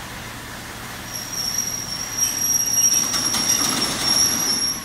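Steel wheels of a slow-moving steam-hauled train squealing against the rails: one steady, high-pitched squeal that starts about a second in and grows louder, with a few clicks and a low rumble of the rolling stock in the second half.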